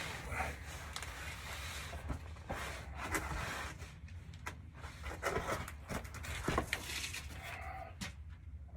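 Faint scattered clunks, clicks and rustling as the clutch pedal and linkage of a 1956 Dodge Town Panel are handled and tried after adjustment, over a low steady hum.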